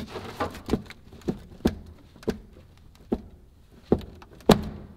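Rusted-through sheet-metal floor pan of a Mazda RX-7 clunking as a foot pushes down on it: a string of sharp metallic knocks, about one every half second, the loudest about four and a half seconds in. The rust has separated the floor pan from the internal brace under the seat, so the pan flexes and knocks.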